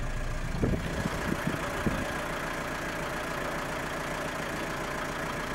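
Vehicle engine idling steadily, with a few dull thumps in the first two seconds.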